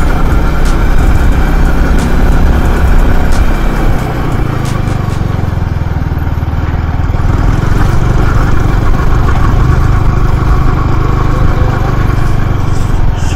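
Yamaha R15M motorcycle being ridden, its single-cylinder engine running under a heavy rush of wind over the microphone. The sound eases slightly about four seconds in.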